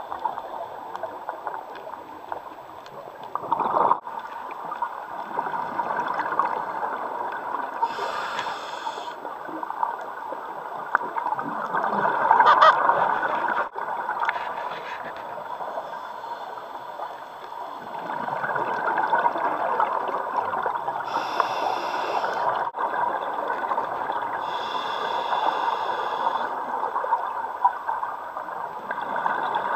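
Scuba regulator breathing heard underwater: a continuous gurgling rush with louder bursts of exhaled bubbles a few times, about eight seconds in, around twelve seconds, and twice after twenty seconds.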